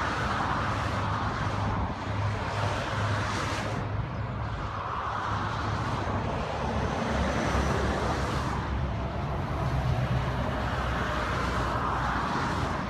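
Convoy of historic Scania trucks driving past below, their diesel engines rumbling, over steady motorway traffic noise. The sound swells three times as vehicles pass, loudest about ten seconds in.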